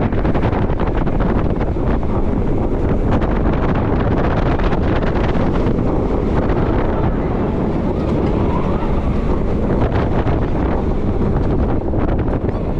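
Wind rushing over the microphone of a rider in the front seat of a Mack launched roller coaster at speed, with the steady rumble and fast rattling of the train's wheels on the steel track.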